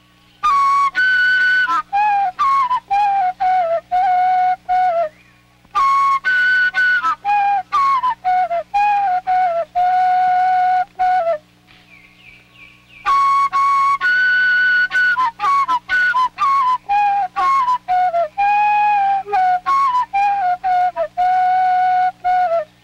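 Background music: a solo flute melody in three phrases of quick notes, each stepping down to a held lower note, with short pauses about five and twelve seconds in. A faint steady hum runs underneath.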